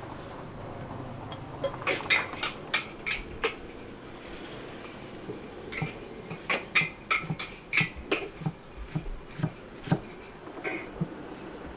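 Sharp, ringing metal clanks of a metal utensil striking a cooking pan: a quick run of strikes about two seconds in, then a longer, irregular run from about six seconds to near the end, over a steady low hum.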